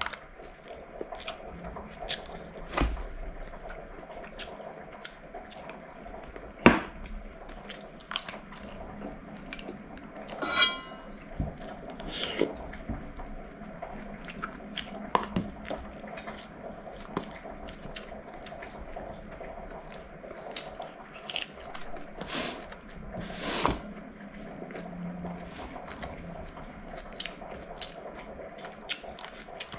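Metal spoon and fork tapping and scraping against plastic food containers while eating: irregular light clicks and ticks, with one ringing clink about ten seconds in. A steady low hum runs underneath.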